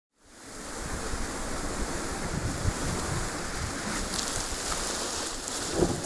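Steady rushing noise, like wind on the microphone, muffled by a waterproof camera housing. Near the end comes a brief louder burst from a person's splash into the pool.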